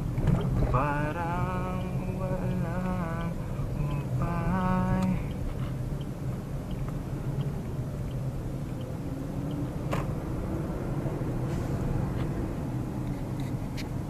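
Steady road and engine noise inside a moving Suzuki Dzire AGS. A voice hums a few drawn-out notes over it for the first five seconds.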